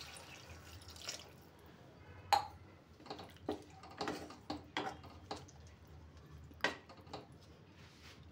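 Water poured from a steel cup into a steel pan of brinjal curry, the pouring ending about a second in. A wooden spatula then stirs the curry, knocking against the steel pan about nine times.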